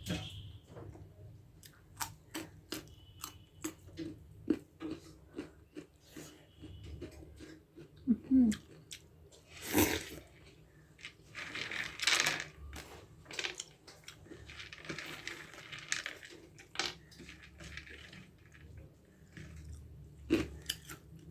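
A person chewing close to the microphone, eating soft dhido with gundruk soup: wet mouth clicks and lip smacks throughout, with a few louder rushing mouth sounds in the middle.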